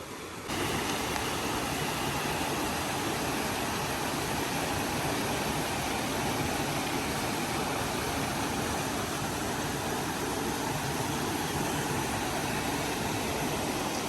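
Ryūchin Falls, a waterfall: a steady rush of falling water, stepping up in level about half a second in and then holding even.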